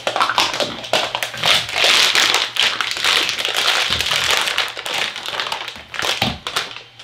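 Plastic wrapping crinkling and rustling as a filament spool is pulled out of its bag and the bag is crumpled, loudest about two to four seconds in, with a few light taps.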